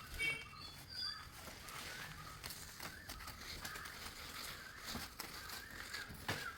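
Faint outdoor ambience with short bird calls and a few scattered light clicks or knocks.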